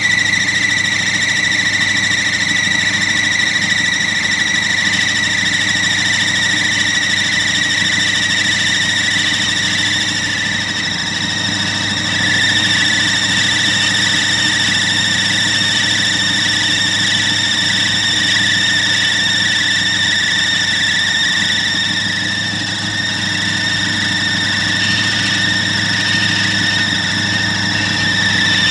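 Alternator on a 1964 Chevrolet Impala Super Sport screaming: a steady high-pitched squeal over the idling engine, dipping slightly in pitch about twelve seconds in. The belt is brand new, and the owner takes the noise as confirmation that the alternator is bad.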